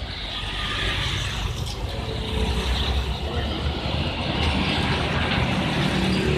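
Road traffic going by: a steady rush of tyre and engine noise over a low rumble, swelling in just after the start and staying level.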